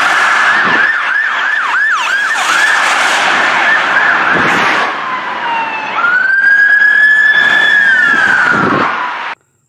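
Police car siren, a fast yelp for the first few seconds, then slower wails that fall, jump back up and hold, and fall again, cutting off suddenly near the end.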